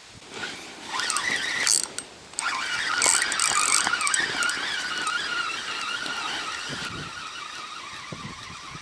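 Spinning reel being cranked on a bent feeder rod, its gears giving a wavering whine, with short louder rasps about two and three seconds in. The angler is winding in a hooked crucian carp.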